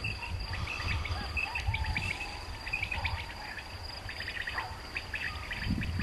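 Crickets chirring steadily, with faint repeated short whistled calls of common quail coming in clusters from illegal electronic quail lures.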